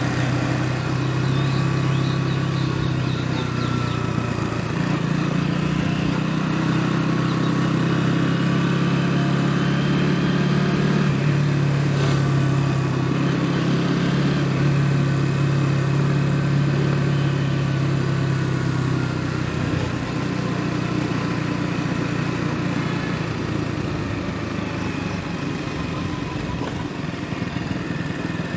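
KTM Duke 200's single-cylinder engine running while the bike is ridden, its note shifting a few times and easing off near the end.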